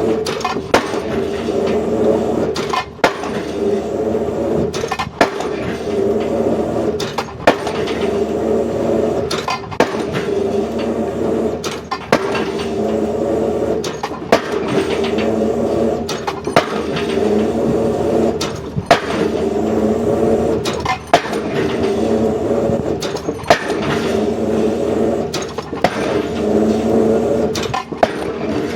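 Excavator drop hammer striking a square concrete pile with a sharp bang about once every two seconds, while the excavator's diesel engine hums and labours between blows as it lifts the weight.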